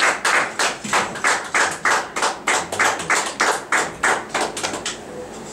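A small group clapping in a steady, even rhythm, about three claps a second; the clapping stops about four and a half seconds in.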